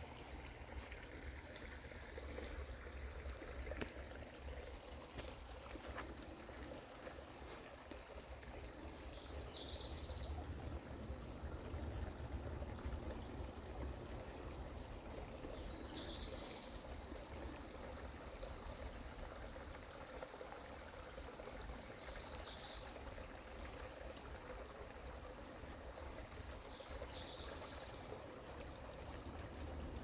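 Shallow creek water trickling steadily over rocks. Four short, high chirps come through about six seconds apart.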